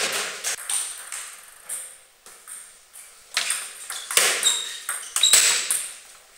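Table tennis rally: the ball clicks sharply and irregularly off the bats and the table. The hits come thicker and louder in the second half.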